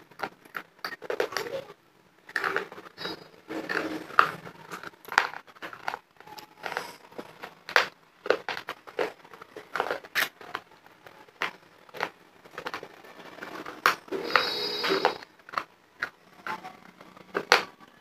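Close-miked chewing of hard dried clay: an irregular run of sharp crunches and crackles.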